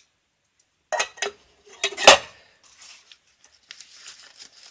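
Small metal camping cook-kit parts knocking and clinking together as they are handled: two light clicks about a second in, a louder metallic knock with a short ring about two seconds in, then faint scraping and rubbing near the end.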